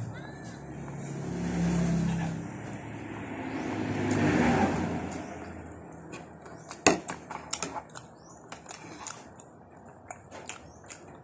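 Two motor vehicles pass one after the other, each swelling and fading, the first peaking about two seconds in and the second near the middle. From about seven seconds in, a metal spoon clicks and scrapes against a ceramic bowl as a thick sauce is stirred.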